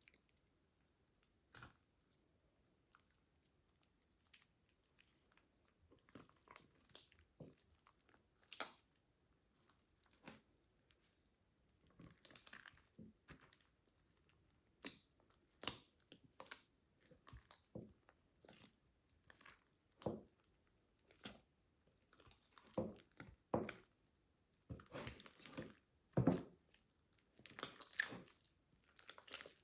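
Slime being squished and pressed by hand, giving irregular crackling pops and clicks, sparse at first and busier in the second half.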